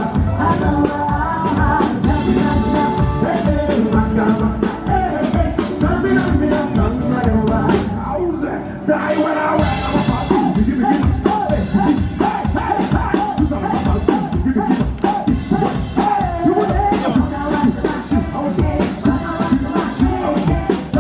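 Live band playing upbeat music with singing over a steady drum beat, with a bright cymbal-like crash about nine seconds in.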